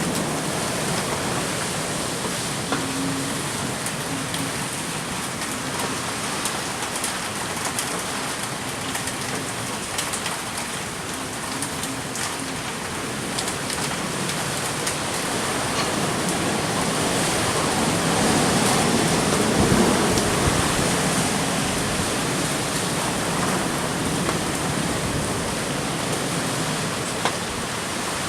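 Heavy typhoon rain pouring down steadily, a dense unbroken hiss that swells louder for a few seconds a little past the middle.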